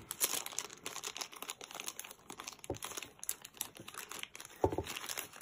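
Thin plastic packaging crinkling and rustling as hands handle and pull open a small clear bag that holds an SD card. There is one brief louder bump near the end.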